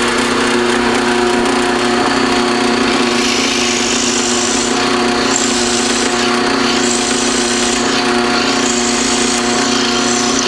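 Drill press motor running steadily while a half-inch Fisch brad point bit bores into a block of birch; the hiss of the bit cutting the wood comes in three spells, starting about three seconds in.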